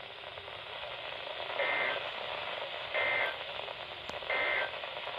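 Emergency Alert System end-of-message code on a NOAA Weather Radio broadcast: three short, buzzy, two-tone data bursts about a second apart over the radio's steady hiss, marking the end of the tornado warning message.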